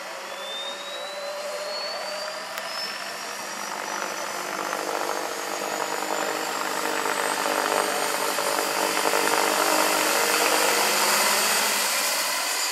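Large electric scale model helicopter (Vario SA-341/342 Gazelle, 2.36 m rotor) in flight, its rotor noise growing steadily louder as it comes closer. A thin high whine rises steadily in pitch throughout.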